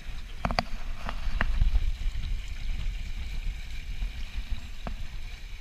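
Dart 18 catamaran under sail: water rushing past the hulls and wind on the microphone, a steady low rumble with a hiss. A few sharp knocks come in the first second and a half, and one more near the end.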